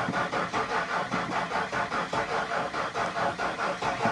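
1999 Ford F-150's starter cranking the engine over in an even rhythm of about four beats a second without it catching, turned by a weak, partly dead battery.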